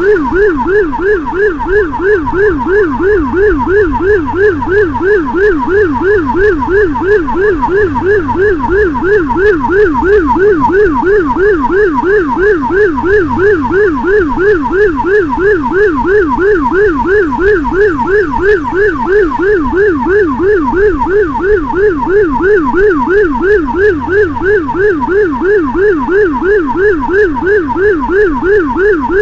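Motorcycle-mounted Whelen electronic siren on a fast yelp, sweeping up and down about three to four times a second without a break.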